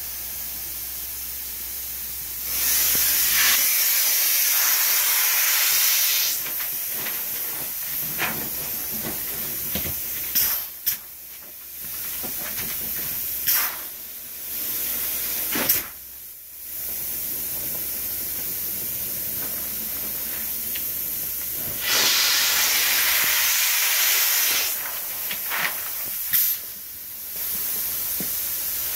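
Spray foam injection gun hissing as polyurethane foam is shot into a closed wall cavity through a drilled hole: two long bursts of a few seconds each, with several brief spurts between, over a steady background hiss.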